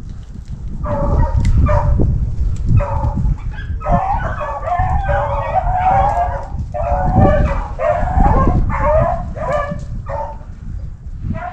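A pack of rabbit dogs baying together in runs while trailing a rabbit's scent, the cries starting about a second in and overlapping with short breaks, over a steady low rumble.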